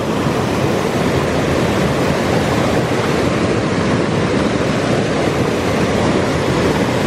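Stream water rushing over a small waterfall: a loud, steady rush with no breaks.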